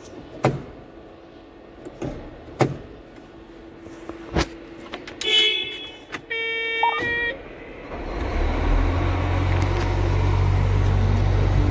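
A few sharp clicks, then short electronic beeps in stepped tones from the dash. About eight seconds in, the Cat 966H wheel loader's diesel engine starts and runs with a steady low rumble.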